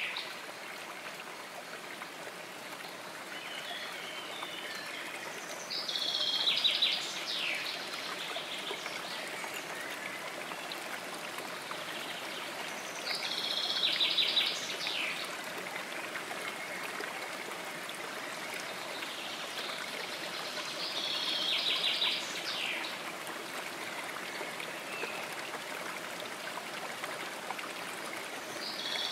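A small stream running and splashing steadily over stones, with a bird call made of a quick run of rapid notes that comes back about every seven or eight seconds.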